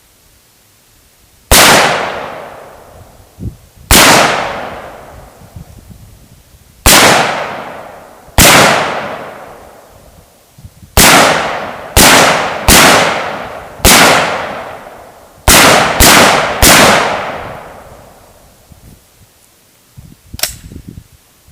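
Short-barrelled 11.5-inch BCM AR-15 rifle firing about eleven single shots at an uneven pace, a quicker string of them in the second half, each crack echoing away over a second or two. A smaller sharp click comes near the end.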